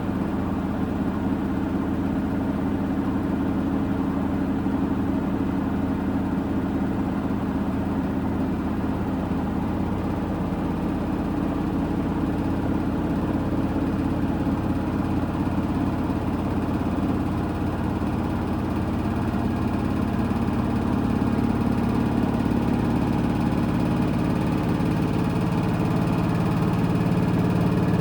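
Washing machine drum spinning steadily: a constant motor hum and whir with several held low tones, growing a little louder in the last third.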